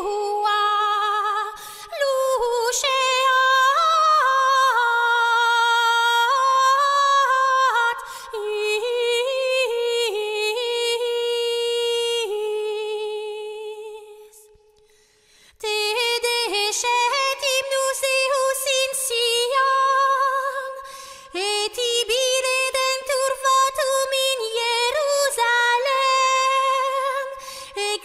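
Unaccompanied hymn singing in a high voice: slow, held, wavering notes. The singing fades out about halfway, pauses briefly, then starts a new phrase.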